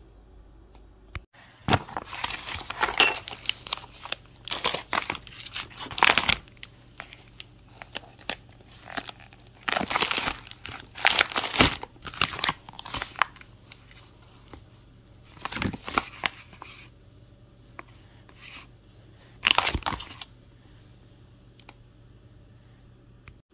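Plastic food packaging crinkling as it is handled. There are irregular runs of crackling rustles in a few bursts, the longest near the start and in the middle, and a short last one a few seconds before the end.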